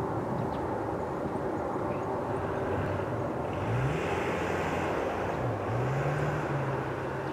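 Jet engines of an Airbus A340-600, four Rolls-Royce Trent 500s, running at low power as the airliner taxis: a steady rumble and hiss with a steady hum. In the second half a low tone rises, dips and rises again in pitch, then holds.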